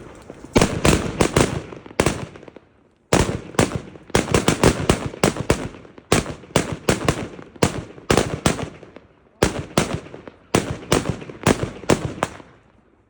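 Funke fireworks going off in rapid volleys of sharp bangs, several clusters of cracks with short pauses between them, fading out near the end.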